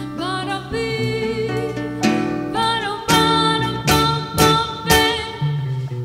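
A live band playing: a woman singing a wavering, vibrato-laden melody over acoustic guitar, bass and keyboard chords. Several sharp accents land in the second half.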